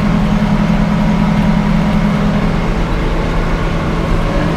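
Sawmill engine running with a steady, even drone.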